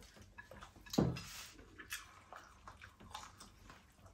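Quiet wet eating sounds: fingers squishing rice with curry and soft chewing and mouth clicks, with one louder short sound about a second in.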